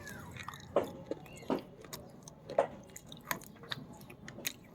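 Close-up chewing of brittle baked clay, with about six sharp crunches spaced unevenly as the pieces are bitten and broken down.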